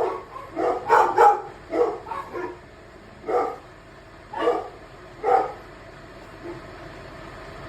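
Dogs barking in short, sharp barks: a quick flurry in the first two and a half seconds, then single barks about a second apart, stopping after about five and a half seconds.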